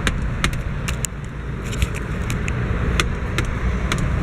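Road traffic rumbling steadily, with scattered sharp clicks over it.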